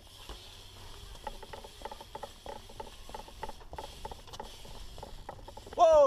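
BMX bike's rear hub freewheel ratcheting as the bike coasts, a run of quick light ticks over a light hiss. Near the end a short, loud pitched sound glides downward.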